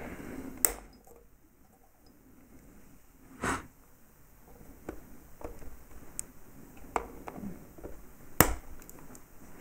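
Cutters snipping the leads of a freshly fixed vape coil. There are two sharp snips, about a second in and near the end, with a duller knock and a few light ticks of handling in between.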